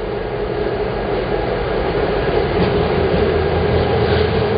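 Diesel-electric freight locomotive running past at close range, its engine drone and rolling noise building gradually louder as it draws level.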